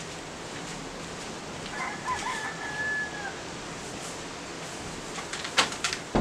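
A rooster crows once about two seconds in, over a steady outdoor hiss, its call ending on a long held note that breaks off. A few sharp clicks follow near the end.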